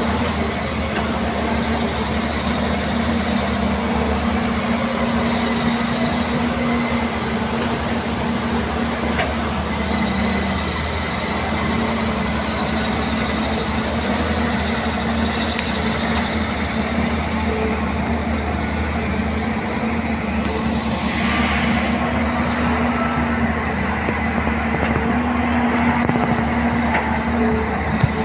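Caterpillar long-reach excavator's diesel engine running steadily under load as it digs, with the pitch dipping and recovering slightly as the hydraulics work.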